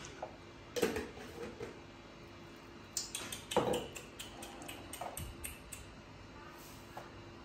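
Kitchenware being handled on a tabletop: a spoon, cups and a glass jar clinking and knocking. There are a few separate knocks, a quick run of taps about three seconds in, and a couple more clinks near the end.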